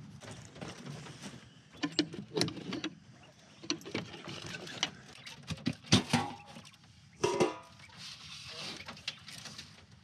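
Handling knocks and clicks, then the lid of a galvanized metal feed can lifted with a sharp clank about six seconds in, and a brief scraping rasp as feed is scooped from the can.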